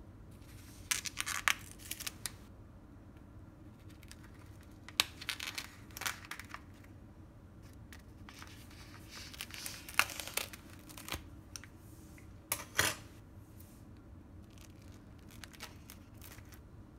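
Plastic cling wrap over a foam meat tray being cut and torn open with a knife and fork, in scattered sharp crackles and crinkles separated by quiet pauses.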